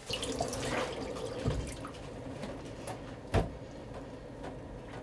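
Tap water running into a stainless-steel kitchen sink while broccoli is rinsed, with one sharp knock against the sink about three and a half seconds in.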